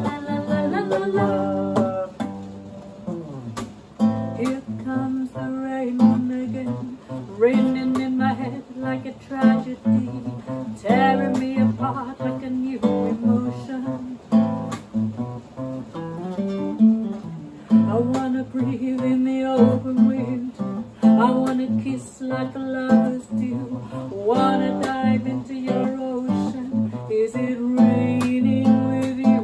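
Classical nylon-string guitar strummed in a steady rhythm, accompanying a woman singing a song.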